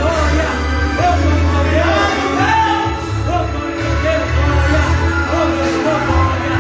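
Live worship music: a band with strong bass plays while voices sing, in a large hall.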